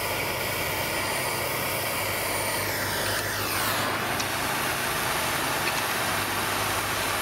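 Handheld propane torch burning with a steady hiss, its tone shifting once about three seconds in. It is heating a stuck cylinder base nut to soften the thread locker.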